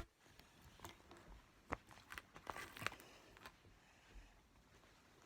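Faint handling of small toys: scattered light clicks and a brief rustle about two and a half seconds in, with one sharp click at the very start.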